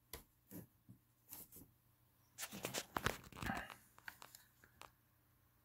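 Faint scattered clicks and taps, with a longer rustle in the middle.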